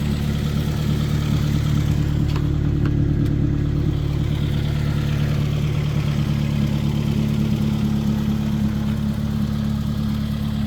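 2000 Honda CR-V's four-cylinder engine idling steadily, with a couple of faint clicks about two to three seconds in.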